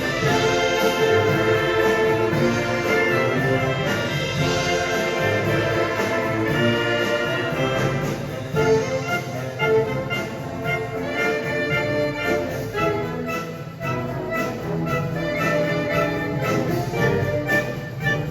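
Marching showband playing a 1970s Manila Sound pop medley live, with brass (trumpets and trombones) carrying the tune over a steady drum beat.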